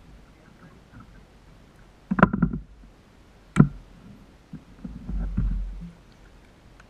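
Gear clattering and knocking against the plastic hull of a Wilderness Systems Tarpon 120 sit-on-top kayak as a rod and gaff are handled. There is a short clatter about two seconds in, a single sharp knock a second and a half later, and a low rumbling thud near five seconds.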